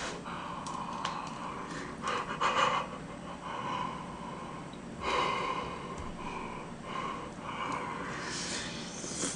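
A man huffing and breathing hard through his mouth around a scalding spoonful of gomtang, in a string of short breathy puffs about a second apart, to cool the hot soup and rice.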